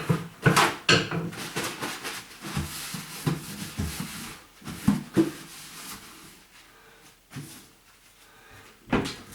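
Irregular knocks, clicks and rustling of household things being handled and put down, busiest in the first half and quieter near the end.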